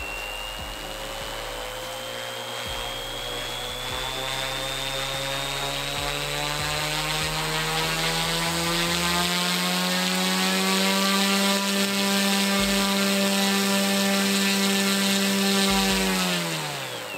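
Large 3D-printed brushless motor driving a propeller at full power: a steady hum with propeller noise and a high whine. It climbs slowly in pitch for about ten seconds, holds steady, then winds down quickly near the end as the motor spins down.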